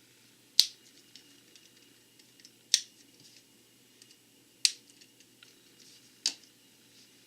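Plastic Lego pieces pressed together, snapping into place with four sharp clicks about two seconds apart, with faint ticks of pieces being handled in between.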